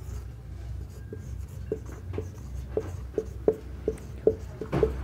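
Whiteboard marker writing on a whiteboard: a run of short squeaky strokes, about two to three a second, starting about a second and a half in.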